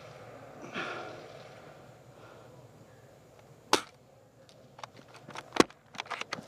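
Gear handling: a single sharp click a little past halfway, then a scatter of clicks and knocks, the loudest a sharp smack near the end as the scope of the raised sniper rifle knocks against the shooter's face.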